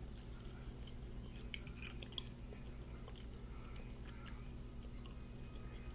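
Close-miked chewing of a pecan ring pastry, soft mouth sounds with a few small sticky clicks and crackles, over a faint steady low hum.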